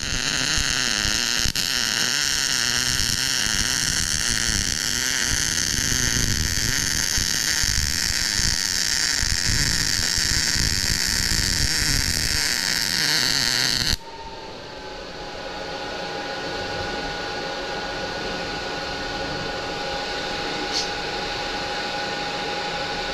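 MIG welding arc on steel, a loud continuous crackle that cuts off abruptly about 14 seconds in. After the arc stops, a quieter steady hum with a couple of high, held tones remains.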